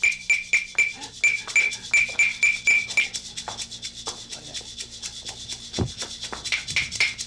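A small ringing hand-percussion instrument struck in a steady beat, about four strikes a second, keeping time for a juggling act. The beat stops about three seconds in, leaving scattered lighter clicks, then picks up again near the end.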